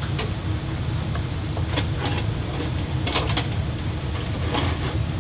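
Light clicks and clinks of a sheet-metal fan hanger bracket being handled, about six scattered through a few seconds, over a steady low hum.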